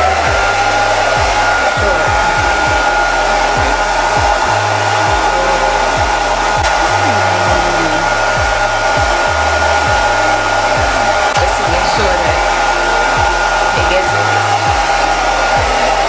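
Hair dryer running steadily, its air blowing into a soft bonnet hood dryer attachment worn over the head: an even rush of air with a steady whine.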